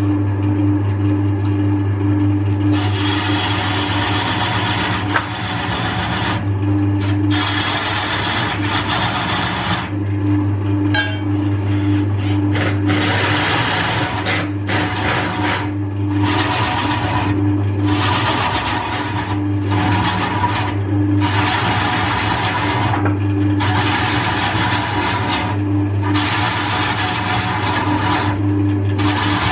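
Wood lathe motor running with a steady hum while a turning gouge cuts into a large spinning log. From about three seconds in, the cuts come as a rasping rush of shavings in repeated passes of one to two seconds, with short breaks between them.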